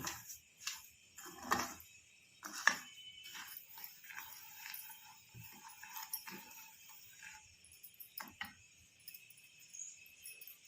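Spoon stirring dry sugar in a kadhai: irregular metallic clinks and scrapes against the pan, with a light jingling, as the sugar is worked to melt without water.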